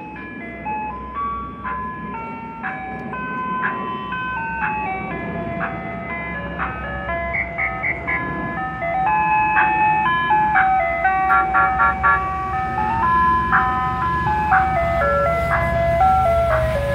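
Ice cream truck's electronic chime tune playing a simple melody over the truck's engine running. Both get louder about halfway through as the truck draws near.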